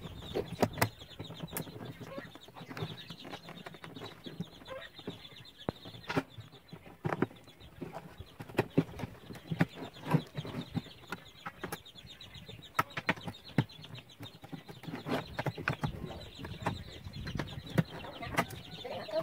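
Box cutter blade cutting holes through the thin plastic wall of a 20-litre water jug: an irregular run of sharp clicks, crackles and scrapes as the blade works through the plastic and the jug is shifted by hand.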